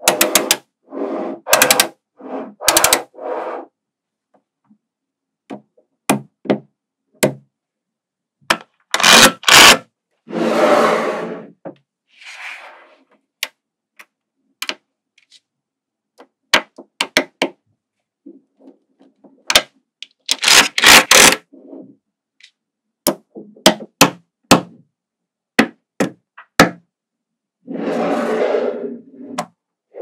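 Small magnetic balls clicking as they snap together and are pulled apart, in quick clusters of sharp clicks, with a few longer rattling scrapes of about a second as blocks of balls shift against each other.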